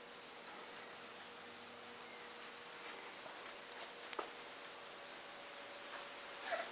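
Faint chirping of crickets, short high chirps repeating about once or twice a second, over a faint steady hum, with a couple of soft clicks, the loudest near the end.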